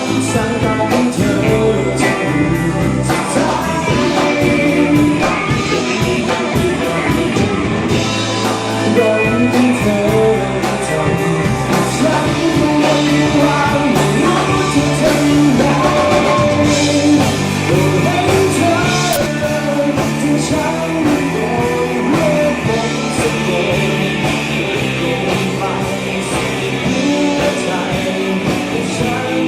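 Rock band playing a song with guitars, bass and drums, and a singer's voice over them.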